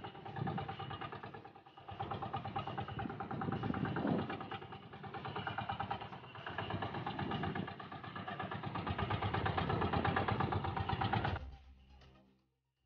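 Small motorized outrigger boat's (bangka) engine running steadily at sea, fading out near the end.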